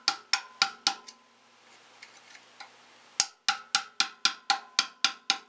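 Screwdriver clicking in quick, even strokes, about three or four a second, as a screw on a water pump's pressure switch is tightened. Each click rings briefly. The clicking stops for about two seconds about a second in, then starts again.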